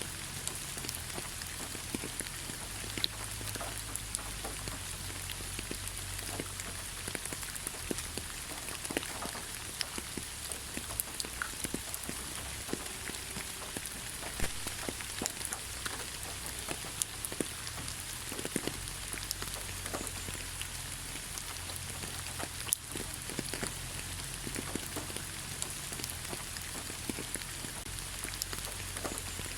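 Light rain falling on leaves: a steady soft hiss, with many separate drops ticking at irregular intervals.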